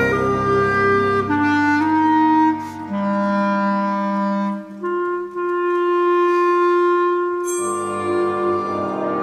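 Solo clarinet playing slow, long held notes with a symphony orchestra. The low accompaniment drops away after about a second and a half, leaving mostly the clarinet's sustained tones, and the fuller orchestra comes back in near the end.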